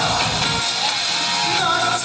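Korean trot song accompaniment playing between the singer's lines, with a melody carried over a full band sound.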